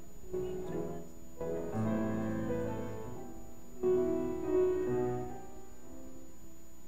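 Piano playing slow, held chords that change every second or so.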